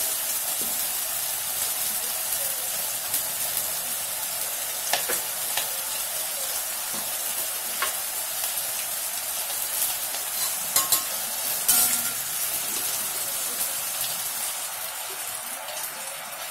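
Potatoes and sliced onions frying in hot mustard oil, a steady sizzle, with a metal spatula clinking against the pan a few times as they are stirred. The sizzle eases off near the end.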